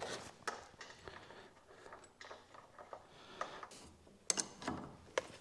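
Faint, irregular light metal clicks and clinks of washers and a nut being fitted onto a bolt by hand, with a quick cluster of sharper clicks about four seconds in.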